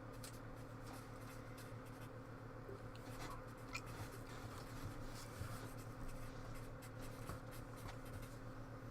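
Faint, scattered light clicks and scratches of small handling sounds over a steady low hum of room or electrical noise.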